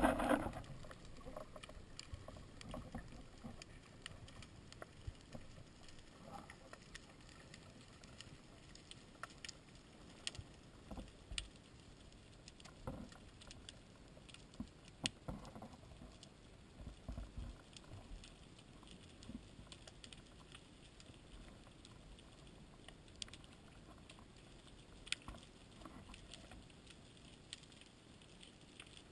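Faint underwater ambience: a low steady hiss with scattered sharp clicks and crackles, a few of them louder.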